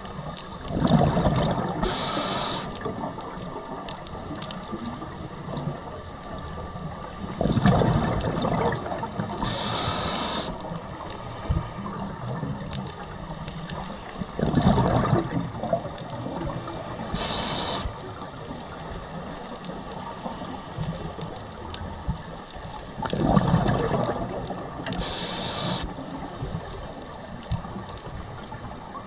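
Scuba diver breathing through a regulator: four slow breaths, each a bubbling rush of exhaled air followed by a short hiss, about every seven to eight seconds.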